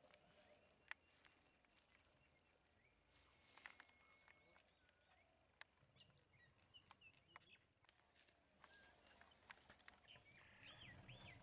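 Near silence: faint forest background with a few faint bird chirps and small clicks.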